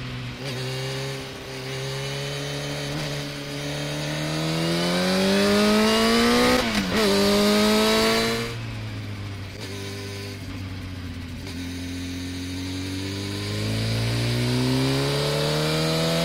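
Motorcycle engine accelerating hard through the gears, its pitch climbing steadily. About halfway through it drops sharply at an up-shift and climbs again, then eases off. It runs lower for a few seconds and builds once more near the end.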